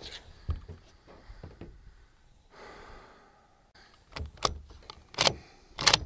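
Bolt of a Mossberg MVP bolt-action .223 rifle being worked: a few sharp metallic clicks and clacks, the loudest coming in quick succession in the last two seconds.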